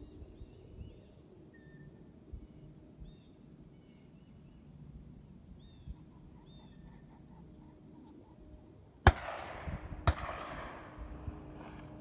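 Two shotgun shots about a second apart, the first the louder, each trailing off in a long echo. Crickets or other insects keep up a steady high buzz throughout, with a few bird chirps in the first half.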